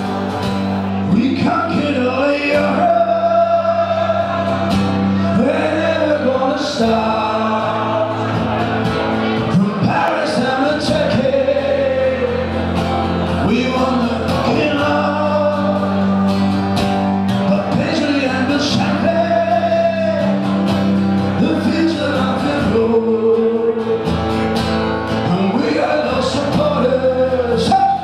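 Background music with a sung vocal over a steady accompaniment.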